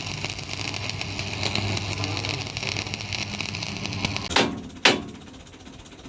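An engine running steadily with a fast rattle, then two loud knocks about half a second apart, after which the sound drops off.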